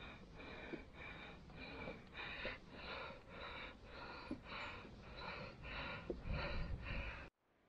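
A cyclist panting hard while pedalling, about two breaths a second, with low wind rumble on the microphone underneath; it cuts off abruptly near the end.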